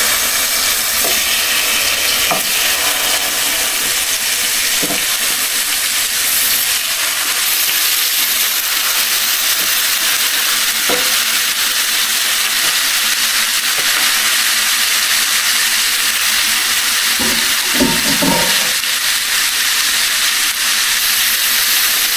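Chicken legs frying in hot oil in a pan, a steady even sizzle as they brown to a golden crust. A few faint knocks sound over it, with a short run of them about 18 seconds in.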